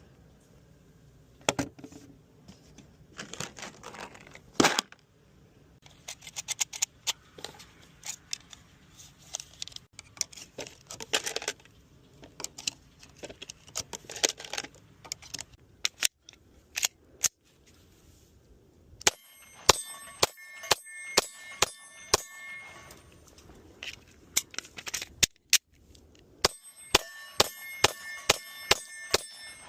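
9mm Glock 19 Gen 5 pistol firing: scattered single shots, then two fast strings of about ten shots each in the second half, with a ringing tone hanging under the rapid strings.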